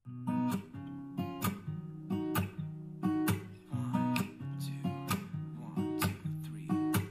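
Pop song's acoustic-guitar intro, strummed chords in a steady rhythm, played through a JBL portable Bluetooth speaker.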